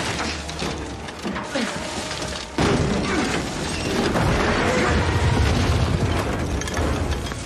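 Landmine explosion striking an armoured vehicle: a sudden loud blast about two and a half seconds in, followed by a heavy rumble lasting several seconds.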